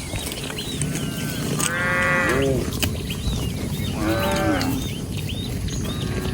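Cattle mooing twice, two short calls a couple of seconds apart, each dropping in pitch at the end.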